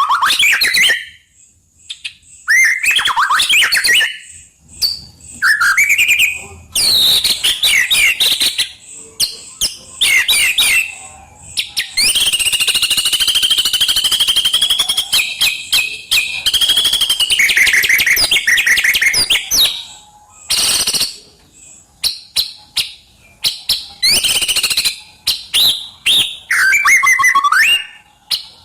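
White-rumped shama singing a loud, varied song of quick whistled and chattering phrases broken by short pauses. About twelve seconds in it holds one dense, continuous trill for several seconds.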